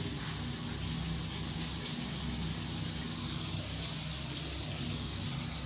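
Steady hiss of running water from a bathroom shower, with a low steady hum underneath.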